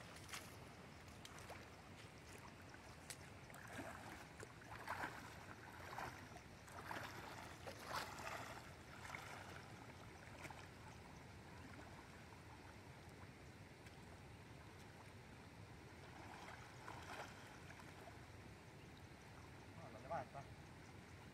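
Faint steady rush of a shallow river current, with splashing and dripping as a cast net is hauled in through the water, most of it between about 4 and 10 seconds in and again briefly near the end.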